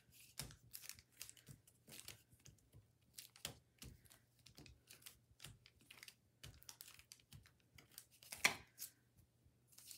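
Faint, irregular light taps and rustles, a few a second, as a plastic-cased ink pad is dabbed repeatedly onto a rubber stamp to ink it, with one louder tap near the end.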